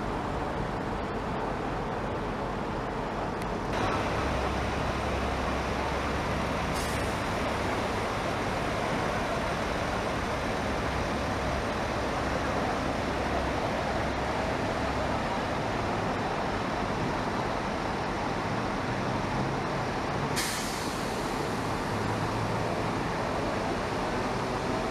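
Steady noise of road traffic and idling buses, with a low hum in places; the noise changes abruptly a few times where shots are cut together.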